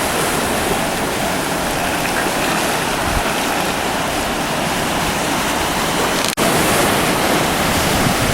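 Ocean surf washing steadily on the beach, with a momentary dropout about six and a half seconds in.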